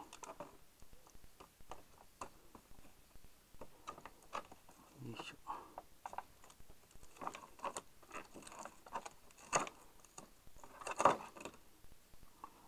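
Clear plastic packaging insert being handled and pulled about in a cardboard box, crinkling with scattered light clicks and crackles, and a louder crackle near the end.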